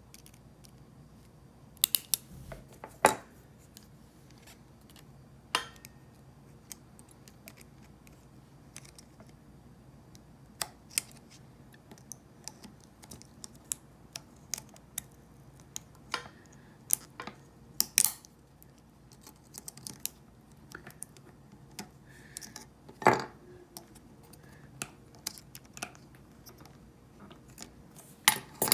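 Small plastic and metal parts of a trimmer head clicking and tapping as they are handled and fitted together under spring tension. The clicks are scattered and irregular, with a few louder snaps about two to three seconds in, around eighteen seconds in and around twenty-three seconds in.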